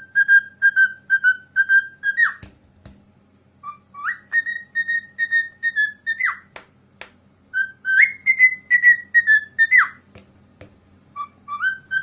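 Cockatiel whistling: three phrases of quick, evenly repeated clear notes, each ending in a sharp swoop in pitch, and a short phrase near the end, with a few faint clicks in the pauses.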